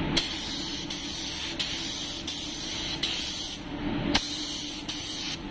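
Gravity-feed paint spray gun hissing as it sprays thinned pearl white paint, in two passes: a long one of about three and a half seconds, a brief release of the trigger, then a shorter one of about a second. A steady low hum runs underneath.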